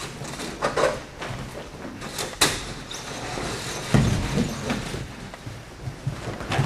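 Bodies landing and rolling on tatami mats in aikido breakfalls: irregular thuds, with a sharp slap about two and a half seconds in and a heavy low thud about four seconds in.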